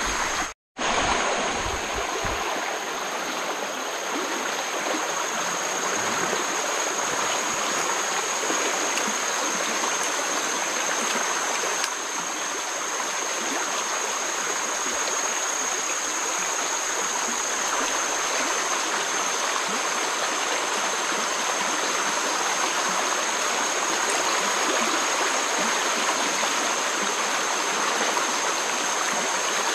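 Flood-swollen river rushing steadily past the bank: a continuous noise of fast, turbulent water. The sound cuts out for a moment about half a second in.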